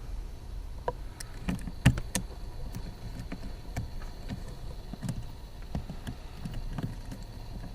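Scattered small clicks, taps and knocks of a hood release cable being worked by hand out of a plastic clamp, with one sharper knock about two seconds in.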